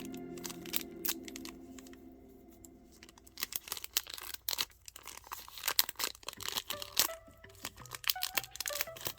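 Foil booster pack wrapper being torn open and crinkled, a quick run of crackles starting about three and a half seconds in, over faint background music.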